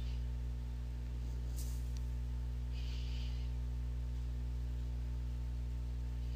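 Steady low electrical hum with its overtones, the background noise of the recording setup, with a soft hiss about three seconds in and a short faint tick under two seconds in.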